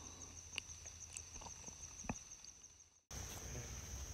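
Quiet woodland ambience: a steady high-pitched insect hum with a few faint clicks and rustles. It fades out, then cuts suddenly to louder woods ambience about three seconds in.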